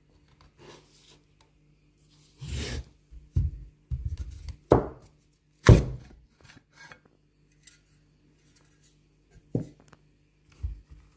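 Plastic power-bank housing scraping and clacking as the inner battery pack is worked out of its shell and set down, with irregular sharp knocks, the loudest about five and six seconds in.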